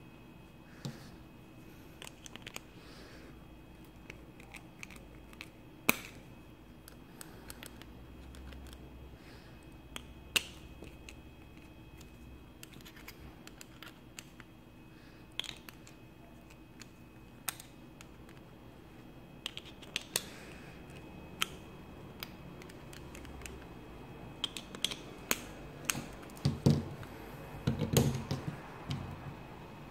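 Screwdriver and small steel kit parts being handled and screwed together: scattered light metal clicks and clinks, with a quick run of louder knocks and handling thumps near the end.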